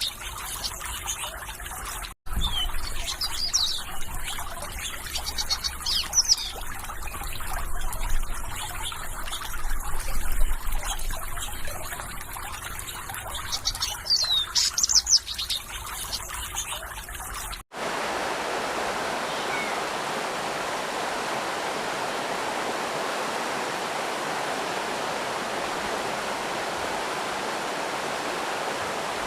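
Small birds chirping in quick, high, sweeping notes over trickling water. About two-thirds of the way through it cuts abruptly to a steady rush of flowing water with no birds.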